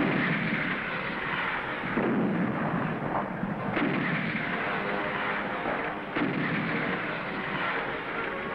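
Artillery fire: about four heavy gun blasts, roughly two seconds apart, each followed by a rumbling fade.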